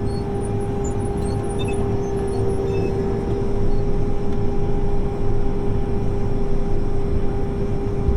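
Case IH 7130 combine running steadily, a constant engine drone with a steady whine over a low rumble.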